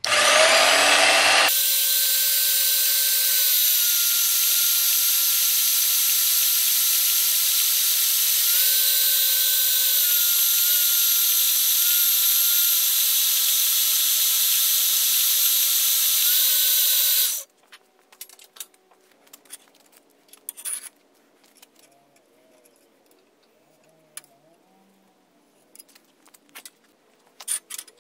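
Magnetic drill press motor spinning up, with a rising whine over the first second or so, then running steadily at high speed with the bit in a small steel part. Its pitch shifts slightly twice under the load, and it shuts off suddenly about seventeen seconds in, followed by a few faint clicks of handling.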